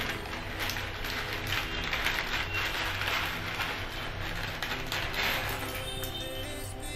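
Water at a rolling boil in a metal wok on a gas burner: a dense, rapid crackle of small bubble pops. Soft music comes in near the end.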